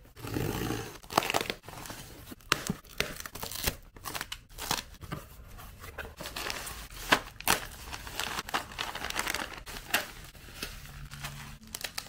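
Packaging being torn open and unwrapped: plastic film and cardboard tearing, then bubble wrap crinkling and rustling in the hands, with many irregular sharp crackles.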